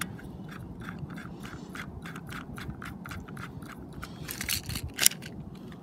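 Suppressor being screwed onto the threaded barrel of a Walther PPQ airsoft pistol: a steady run of small clicks and scrapes from the twisting threads, several a second, with a louder click about five seconds in.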